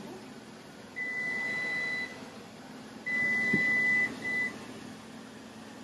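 Speed Queen commercial washer's control panel beeping as its settings buttons are pressed: a steady high beep about a second long, another about two seconds later, then a short one, with a faint click in between.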